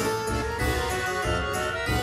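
Background music: a melody of quick, bright pitched notes over a steady low beat of about two pulses a second.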